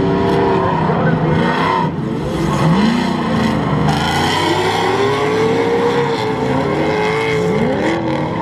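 Several drift cars sliding together in a tandem drift: their engines rev hard, each rising and falling in pitch on and off the throttle and overlapping one another, over the hiss and squeal of spinning tires.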